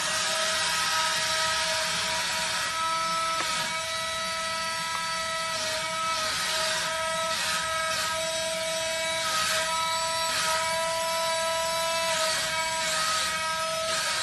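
Wall-climbing RC car's suction fan running steadily with a high motor whine, holding the car against the wall, with a hiss that swells and eases as it drives about.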